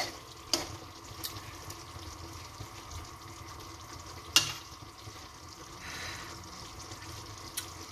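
Chicken curry simmering in a non-stick pan on a gas stove with a steady low hiss, while a spoon stirs through it and clinks sharply against the pan three times.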